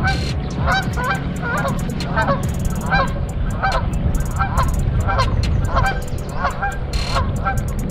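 Waterfowl honking, a rapid series of short honks at about two a second throughout, over a low rumble of wind on the microphone.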